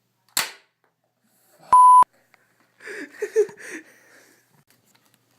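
A short sharp hissing burst, then a loud electronic beep held at one steady pitch for about a third of a second, followed by a brief voice.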